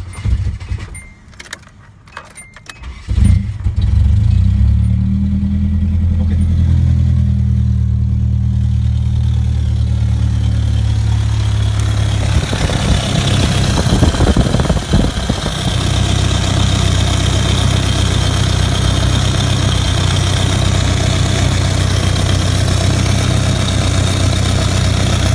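Keys rattle in the ignition, then the Nissan 240SX's four-cylinder engine cranks and starts about three seconds in and settles into a steady idle. From about halfway it sounds harsher and hissier, with a couple of brief revs. The owner suspects this ugly sound is an exhaust leak at the header, where a bolt is missing, rather than a rod knock.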